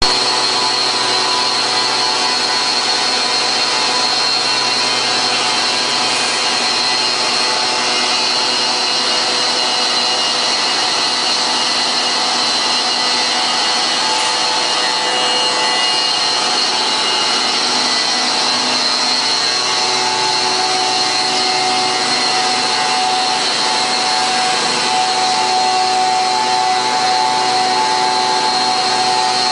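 Scandinvent CNCut CNC stone machine running, its spindle tool working a stone slab under water coolant: a loud, steady machine noise with a high whine. Some of the lower tones shift slightly about two-thirds of the way through.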